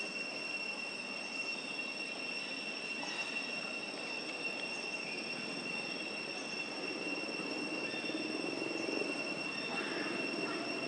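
Steady high-pitched insect drone holding one unbroken pitch, over a low, even background rumble that grows a little louder in the second half.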